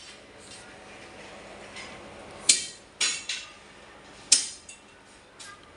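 Sharp knocks of hard objects: a loud one about two and a half seconds in, followed by a couple of softer ones, and another loud one nearly two seconds later.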